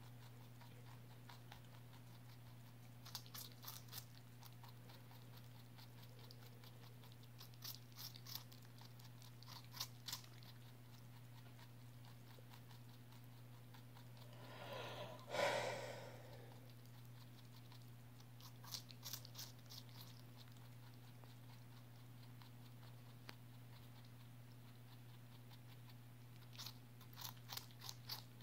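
Rabbit biting and crunching into a raw cucumber: short bursts of quick, crisp crunches every few seconds. One louder, longer noise comes about halfway through, and a steady low hum runs underneath.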